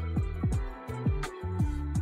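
Electronic outro music with a bass line and a drum beat.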